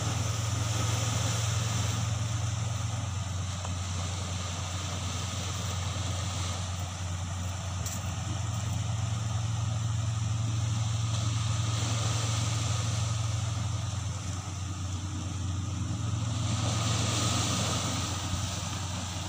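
A steady low engine hum, with the hiss of small waves washing onto the shore swelling and fading over it a couple of times.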